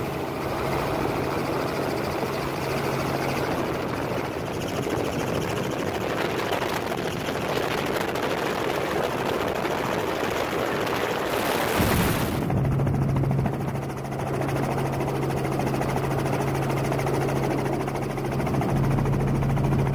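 River water rushing over rocky shallows, heard through a phone microphone that distorts it. About twelve seconds in it gives way to a helicopter running steadily, a low, even engine and rotor hum.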